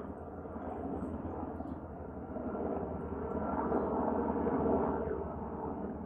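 Helicopter in flight, a steady engine and rotor noise with a fast low throb that grows louder a few seconds in and eases off near the end.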